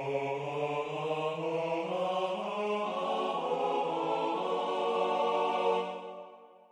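Four-part choral arrangement played back as synthesized choir voices, with no words sung. A sustained chord that moves to new notes partway through and fades away near the end.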